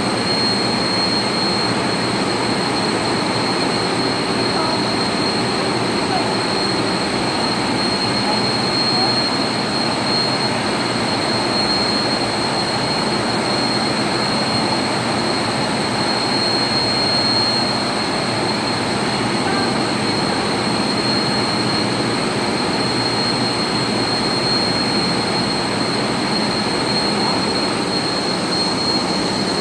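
Screw-compressor water chillers running in a chiller plant: a steady mechanical drone with a constant high-pitched whine over it.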